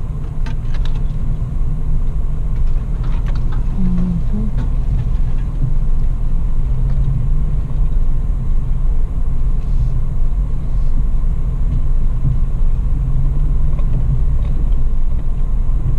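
Toyota FJ Cruiser driving slowly over a dirt track, heard from inside the cab: a steady low engine and road rumble, with a few light rattles or knocks in the first few seconds.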